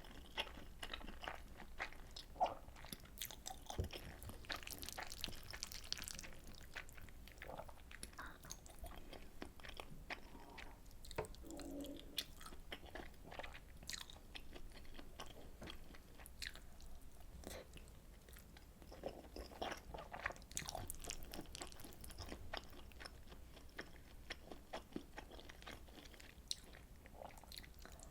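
Close-miked eating sounds: a person chewing and biting mouthfuls of soy sauce butter egg rice, with many short sharp clicks scattered throughout.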